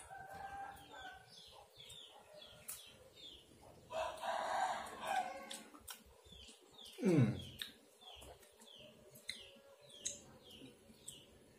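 Soft papaya being eaten from a spoon, with quiet chewing and slurping, against a rapid run of short, high, falling bird chirps. There is one loud, short downward-sliding sound about two-thirds of the way through.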